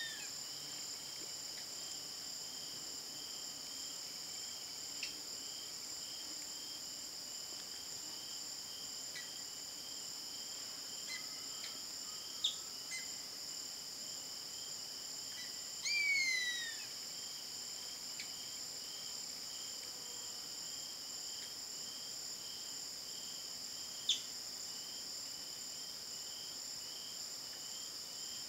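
Steady, high-pitched chorus of insects trilling, the lowest band pulsing. About halfway through, a savanna hawk gives one drawn-out call that slides downward in pitch for about a second. A few short, sharp chirps are also heard.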